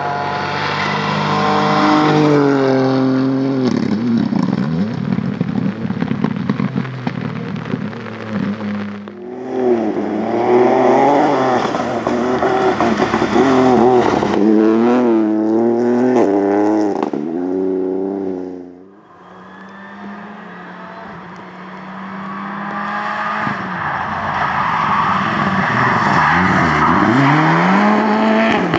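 Rally cars at full throttle on a gravel stage, cut together one after another: first Ford Fiesta rally cars, then a Mitsubishi Lancer Evolution, each engine climbing in pitch and dropping with every gear change as it approaches and passes, with gravel spraying under the tyres. The sound breaks off abruptly about nine seconds in and again about nineteen seconds in, where one pass cuts to the next.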